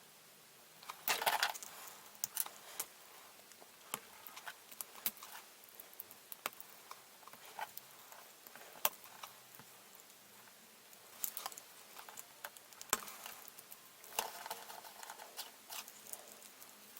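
Small plastic model-kit parts being handled: irregular light clicks and taps, with brief rustling flurries about a second in, past the middle and near the end.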